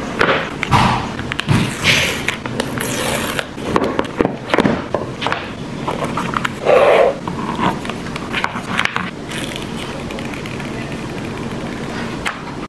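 Packaging noise as a smartphone box is unboxed: the paper pull strip torn off, the cardboard lid slid off, and the paper film peeled from the screen, heard as a run of separate scrapes and rustles, the loudest about seven seconds in.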